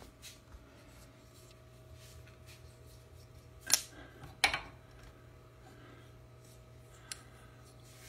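Two sharp clicks about a second apart, with a smaller one near the end, from hands handling a garage door opener's trolley and its emergency release cord, over a faint steady hum.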